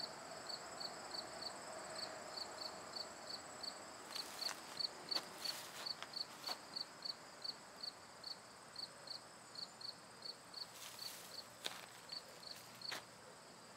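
Crickets chirping, faint and evenly paced at about three chirps a second, over a thin steady high-pitched tone. A few soft clicks come in the middle and near the end.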